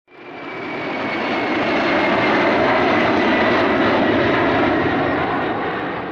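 Jet aircraft engine noise, as when a jet passes overhead: a loud steady rush that swells in over the first two seconds, with a thin whine falling slowly in pitch, starting to fade near the end.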